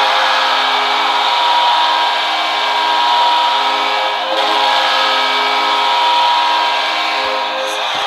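Hockey arena goal horn sounding one long steady blast over a loud crowd cheering, the signal that the home team has scored.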